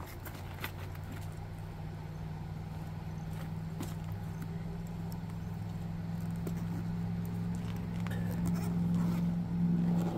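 Steady low hum of a Jeep Gladiator pickup's engine idling, with scattered light clicks, clinks and rustling as winch cables, remote and fittings are packed into a soft bag.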